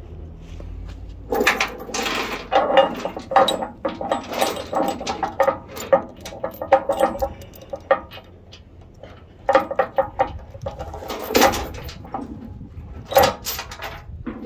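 Heavy steel transport chain clanking and rattling in irregular bursts as it is pulled by hand and threaded through a D-ring on a trailer deck to chain down a load. It starts about a second in and eases off for a while in the middle before picking up again.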